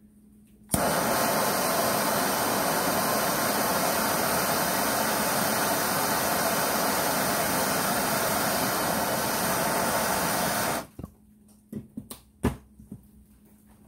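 Handheld gas torch burning with a steady, loud hiss as its flame heats a stuck bearing on a steel spindle. It lights under a second in and is shut off suddenly about ten seconds later, followed by a few short clicks.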